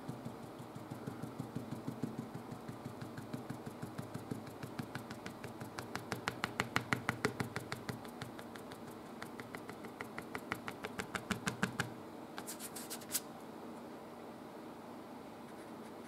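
Oil paint brush dabbing and flicking short strokes onto the painting surface, a quick, even tapping of about six strokes a second that stops about twelve seconds in. Just after, a brief higher, scratchy stroke.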